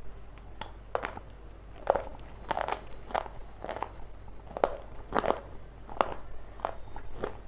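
Close-miked biting and chewing of a hard, brittle food: a string of sharp crunches, roughly one or two a second, with softer crackling between them.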